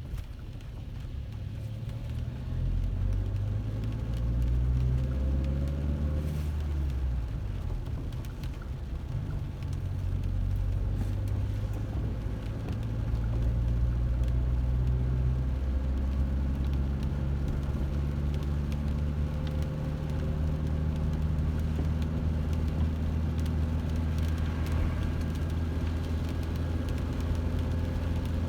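A car running while being driven, its low engine hum shifting in pitch several times as the speed changes.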